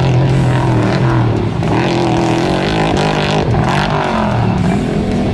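Off-road race truck engine running hard, its pitch rising and falling as the driver works the throttle through the track.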